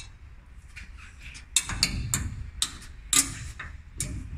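Bolts and nuts being fitted by hand behind a steel valve-mounting bracket: irregular sharp metallic clicks and taps, about half a dozen, starting about a second and a half in.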